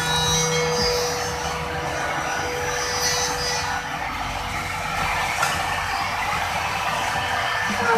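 Wood trimmer (compact router) mounted under a router table, running unloaded with a steady high whine, over a rustle of plywood being slid on the table; the whine stops near the end.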